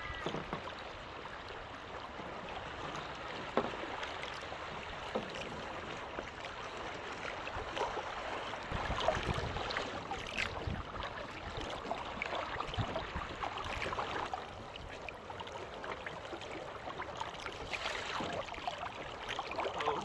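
Water rushing and splashing along the hull of a small sailboat under way, with a few sharp knocks. It grows louder for a couple of seconds near the middle.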